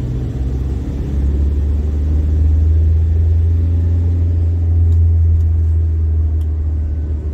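Low steady rumble of a car on the move, heard from inside the cabin, growing louder about a second in.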